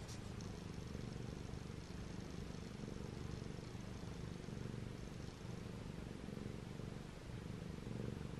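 Domestic cat purring: a soft, steady low purr in even waves about a second long.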